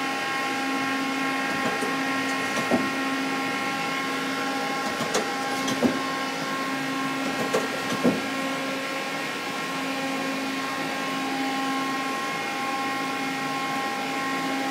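Mori Seiki CL-153M CNC lathe running, a steady machine hum with several fixed whining tones, while its turret axis is jogged. Its slide moves quietly. A few short clicks and knocks come between about two and eight seconds in.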